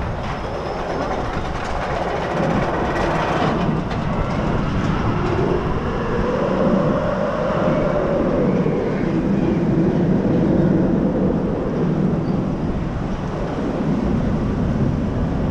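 Log flume boat moving along its water channel, with a steady mechanical rumble and clatter from the ride.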